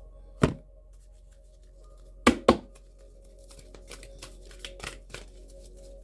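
A deck of oracle cards being handled and shuffled: a sharp knock about half a second in and two more close together about two seconds in, then a run of quick soft card flicks. Faint steady background music underneath.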